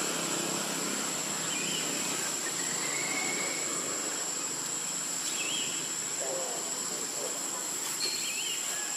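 Forest ambience: a steady, high-pitched insect drone over a hiss, with short bird chirps and a slurred whistle a few times.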